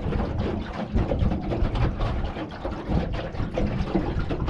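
Gusty wind noise on the microphone over water splashing against the hull of a drift boat moving across rippled water. No motor hum stands out.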